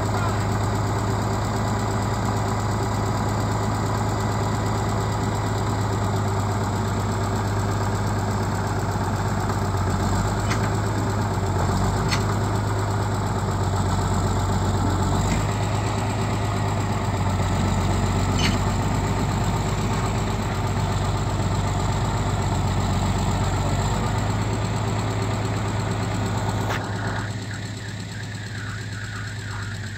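Caterpillar D6 crawler tractor's diesel engine running steadily, easing down about three seconds before the end, with a few sharp clicks about midway.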